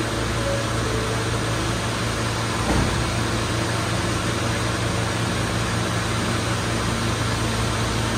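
Subway train standing at the platform, its ventilation and equipment running with a steady hum. The doors close with a single thump about three seconds in.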